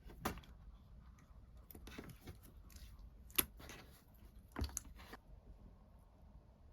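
Slime being handled: sticky pops and clicking crackles, a few sharp pops among them, dying away after about five seconds.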